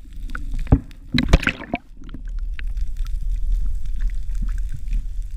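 Muffled water sloshing and gurgling heard from just under the surface beside a kayak hull. There are a few sharp knocks and splashes in the first two seconds, then a steady low rumble of water.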